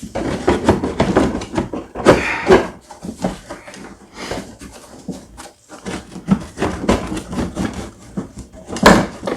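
Hard plastic panel of a snow thrower being worked loose and moved around by hand: a run of irregular clatters, scrapes and knocks, with a sharp knock near the end.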